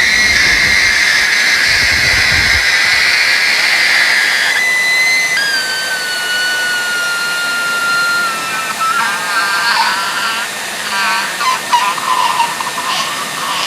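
A pet bird calling: a long harsh screech, then a long clear whistle that slowly falls in pitch, then a run of short warbling chirps.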